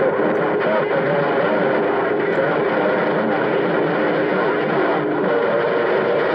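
CB radio receiver carrying a garbled pile-up of distant skip stations: several distorted voices talking over one another, with a steady heterodyne whistle through the middle and a higher one setting in near the end. The signals are too jammed together for any one call to be made out.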